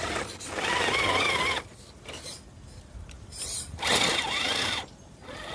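Electric motor and geared drivetrain of a 1/10-scale Axial Bronco rock crawler whining in two bursts of throttle about a second long each, the pitch wavering up and down as the truck works its way up the rocks.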